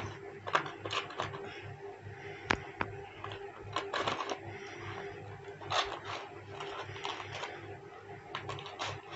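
Rolls of adhesive tape being dropped one by one into a cardboard drawer, giving irregular light clicks and knocks as they hit the cardboard and each other, over a faint steady hum.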